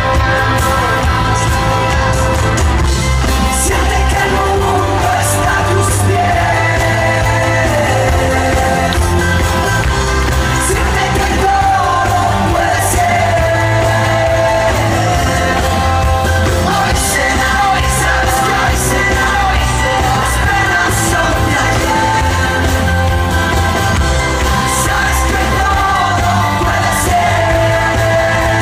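Male lead singer singing a Spanish-language pop-rock song live with a full band: bass, drums and guitar, heard loud and steady from within the audience.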